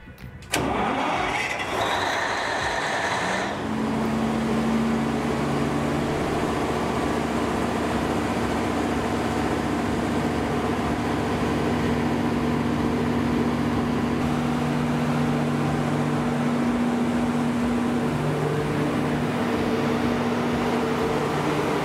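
Cummins VTA-1710 V12 diesel generator set starting up: a sudden start about half a second in, a rising whine for about three seconds as the engine fires and comes up to speed, then a steady run.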